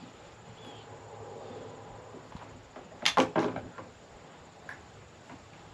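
A quick cluster of three or four sharp knocks and clicks about three seconds in, with a faint tick or two after: the bipod-mounted bolt-action rifle being handled and set on the wooden shooting bench.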